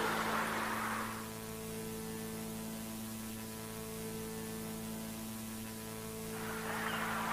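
Steady electrical mains hum with a buzzy stack of even tones and faint hiss, from the VHS tape transfer. A rushing, water-like noise fades out about a second in and comes back near the end.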